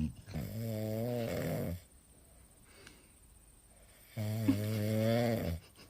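A sleeping dog snoring: two long, drawn-out snores about two and a half seconds apart.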